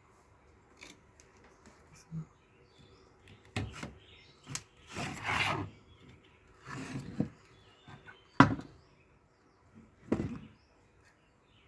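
Handling and tool noises from work on a power-supply circuit board. There are a few sharp clicks and taps, the loudest a little over eight seconds in, and two spells of scraping or rubbing around the middle.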